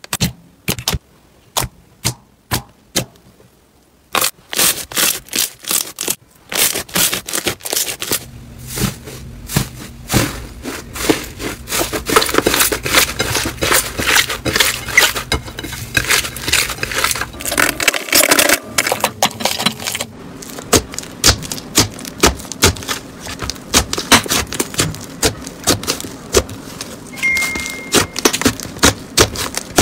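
Slime being poked, squeezed and kneaded by hand: sharp pops and clicks of air pockets, sparse at first, then a dense run of crackling and squelching about four seconds in.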